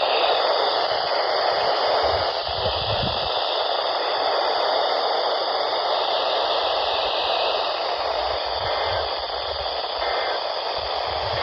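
Handheld weather radio's speaker hissing with steady static, no station voice coming through, with a few faint low rumbles underneath.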